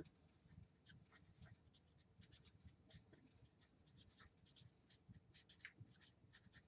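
Dry-erase marker writing on a whiteboard: a faint, quick run of short squeaks and scratches, one for each pen stroke.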